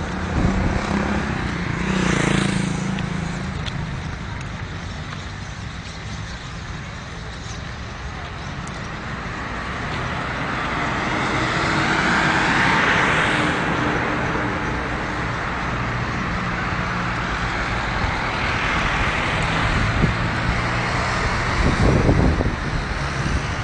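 Road traffic on a town street: cars and other vehicles running past in a steady stream, with one vehicle passing close about two seconds in and a longer, louder pass-by around the middle.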